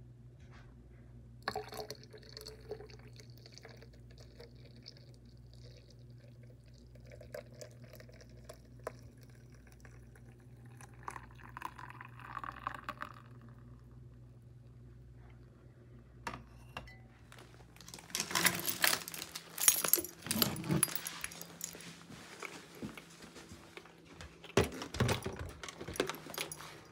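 Liquid poured from a glass carafe into a plastic thermos jug over a steady low hum. Loud clattering and rattling follow in the last third, ending with a door handle being pressed.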